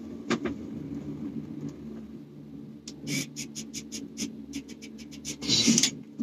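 Gondola cable car passing a support tower: a steady low hum in the cabin, then, about three seconds in, a quick run of clacks at about seven a second as the cabin's carrier rolls over the tower's sheave wheels. A short rush of noise follows near the end.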